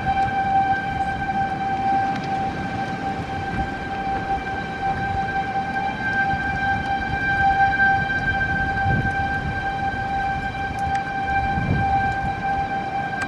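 Outdoor tornado warning siren sounding one steady, unwavering tone for a tornado warning. Low gusting wind noise from the storm runs underneath, swelling twice in the second half.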